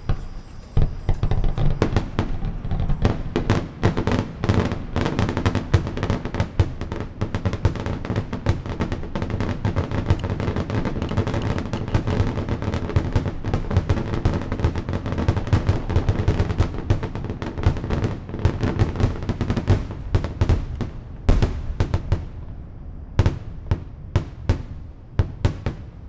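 Fireworks display: aerial shells bursting in a rapid, dense barrage of bangs over a continuous rolling rumble, thinning to separate bangs for the last few seconds.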